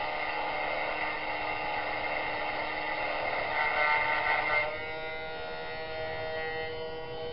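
Small electric motor of a pantograph engraving spindle running with a steady, many-toned whine while its cutter engraves a label. About two-thirds of the way through, the louder, rougher cutting noise drops away suddenly, leaving the motor's steady hum.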